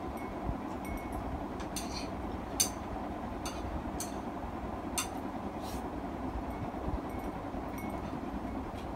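Eating utensils clinking lightly against a ceramic bowl and plate: a scattered series of short clicks, the sharpest about two and a half seconds in, over a steady background hiss.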